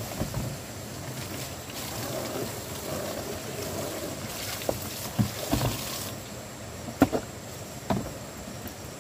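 Water sloshing and splashing as plastic basins are rinsed and emptied, with a few sharp knocks of plastic basins on wet wooden boards, the loudest about seven seconds in.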